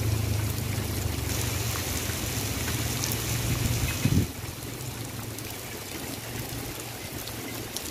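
Steady rain falling on a wet road and puddles. A low engine hum runs under it for the first four seconds and cuts off with a short thump.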